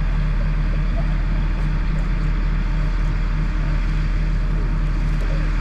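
A crane truck's engine running steadily at idle, a constant low rumble.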